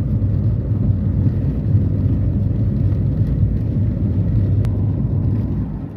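A vehicle on the move: a steady, low engine and road rumble, which cuts off abruptly at the very end.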